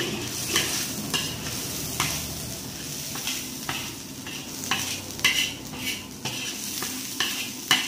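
Squid and shrimp frying and sizzling in a pan, stirred with a spatula that knocks and scrapes against the pan about once or twice a second over a steady sizzle.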